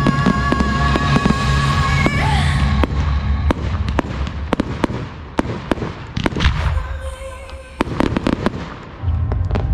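Fireworks display: a rapid series of aerial shell bangs, thinning out and getting quieter in the second half, with music playing underneath.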